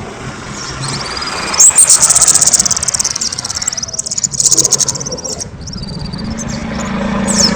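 A kemade songbird singing loudly in rapid high-pitched trills and whistled phrases, the loudest a fast buzzing trill with a rising whistle that starts about one and a half seconds in and lasts about two seconds, followed by shorter broken phrases.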